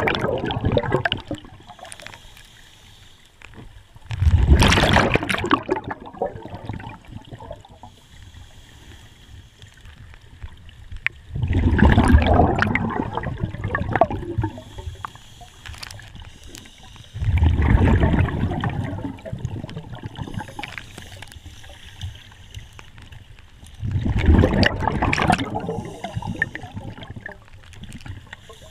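Underwater scuba diver breathing: the regulator's exhaled bubbles make a bubbling rush about every six seconds, four full breaths with quieter stretches between.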